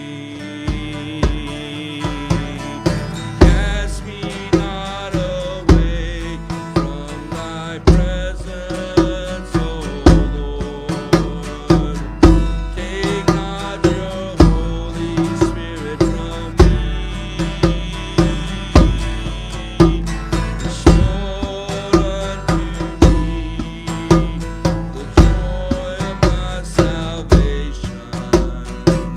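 Instrumental break in a worship song: acoustic guitar strumming, with a steady drum beat marking the rhythm.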